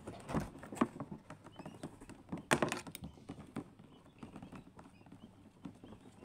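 Irregular light taps and clicks from newly hatched quail chicks moving about on the incubator floor mat, with the loudest cluster a little over two seconds in.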